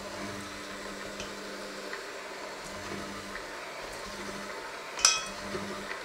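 Electric hand mixer running steadily, its beaters working a crumbly dough in a stainless steel bowl. About five seconds in, a beater strikes the steel bowl with a sharp, ringing clank, the loudest sound here.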